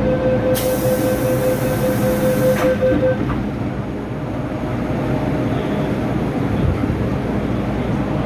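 MTR M-Train door-closing warning: rapid beeping for about three seconds with a hiss as the doors slide shut, ending in a knock as they close. The car's low steady rumble follows.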